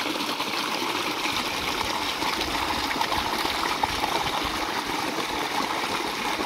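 Water running steadily into a concrete drinking trough, an even rushing trickle.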